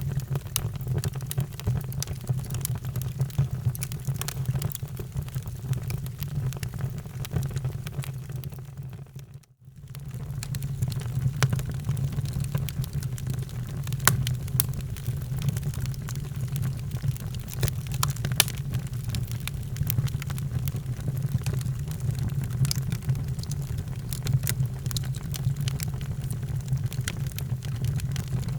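Wood fire burning in a fireplace: irregular sharp crackles and pops over a steady low rumble of flame. About nine seconds in, the sound briefly dips out and comes back.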